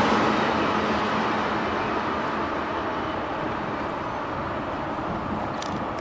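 Freight train of oil tank cars pulling away after the last car has passed: the rush and rumble of steel wheels on the rails fading steadily.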